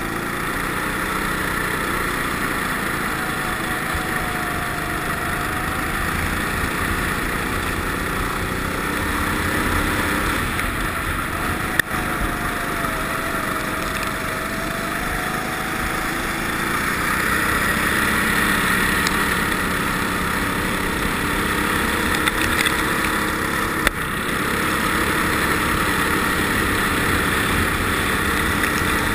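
Ice kart engine running at speed, heard from on board, its pitch rising and falling as the kart speeds up and slows through the corners. Two sharp knocks, one near the middle and one toward the end.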